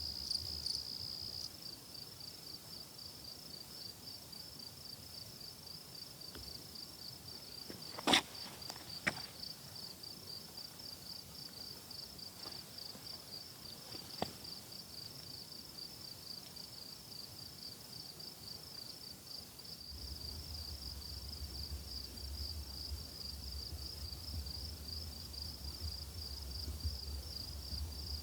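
High-pitched insect trill, pulsing without a break, with a couple of sharp clicks about eight and nine seconds in and a low rumble starting about two-thirds of the way through.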